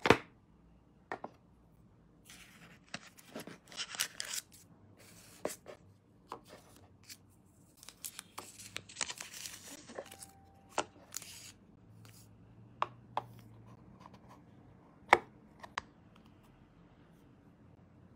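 Earbud packaging being opened: cardboard and plastic wrap rustling and tearing in two stretches, with scattered clicks and taps as the box and the plastic charging case are handled, the loudest tap about 15 seconds in.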